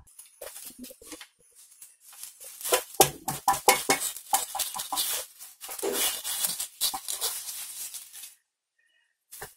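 Wooden chopsticks scraping and tapping against a frying pan and rustling its banana-leaf lining as a fried egg omelette is lifted out onto a plate. A busy run of short clicks and scrapes stops shortly before the end.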